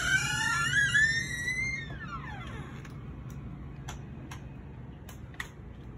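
A door's hinge squeaking as the door swings open, one long pitched squeal that rises for about two seconds and then slides down. A few faint clicks follow over a steady low hum.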